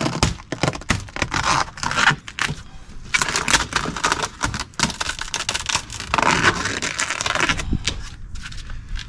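Matte black vinyl wrap film crackling and crinkling as it is stretched and pulled by hand over a car door: a dense run of small cracks and rustles, with a couple of brief lulls.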